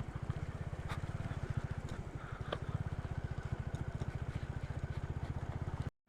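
Motorcycle engine running at low revs with an even, rapid pulse of firing strokes, a few faint clicks over it; it cuts off suddenly near the end.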